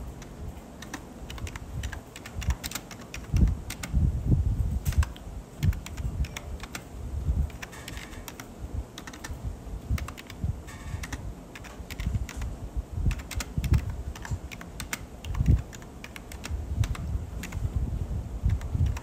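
An irregular run of light clicks and taps, much like typing on a keyboard, with dull low thumps among them.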